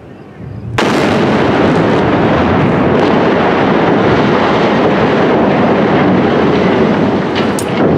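Explosive demolition of a steel truss highway bridge: a sudden loud blast about a second in, running straight on into a long, continuous rumble as the charges go off and the steel spans crash down, easing off near the end.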